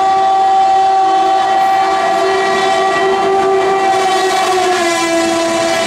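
Indian Railways diesel locomotive's horn sounding in one long held blast as the locomotive approaches and passes. The horn drops in pitch near the end as the locomotive goes by.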